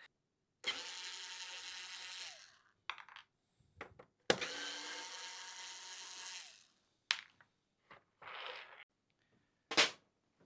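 Cordless electric screwdriver running twice, each time for about two seconds, backing out short screws, its motor pitch dropping as it stops. Short clicks and knocks of screws and handling come between the runs.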